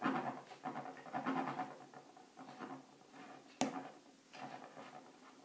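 Fork pricking a shortcrust pastry base in a fluted tart tin: a quick run of soft taps and scratches, thinning out, with a single sharp click a little past halfway.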